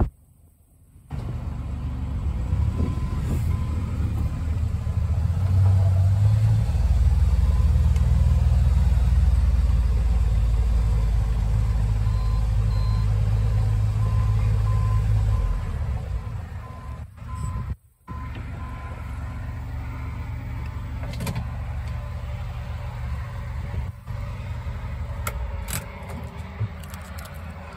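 Arctic Cat Prowler UTV engine running while driving. It is a steady low drone that is loudest through the middle, then drops to a lower, steadier running sound after a short break. A faint electronic beep repeats over the louder stretch.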